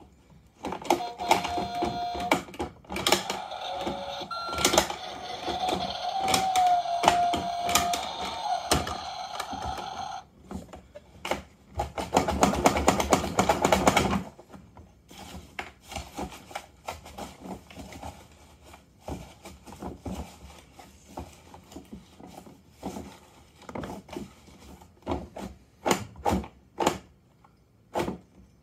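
Toy garbage truck's electronic sound effects played through its small speaker, a run of steady tones that jump in pitch and then cut off suddenly, followed by a short loud buzz. After that come scattered light clicks and knocks of plastic toy bins and the truck being handled.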